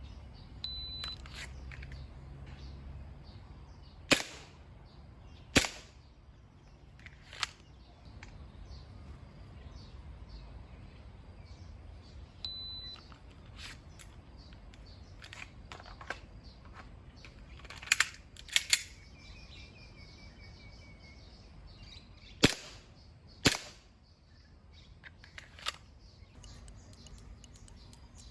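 WE G18 gas blowback airsoft pistol fired in single, sharp shots, spaced one to a few seconds apart. Each string follows a short high beep from a shot timer app: one beep about a second in, then three shots; a second beep a little before the middle, then about six shots.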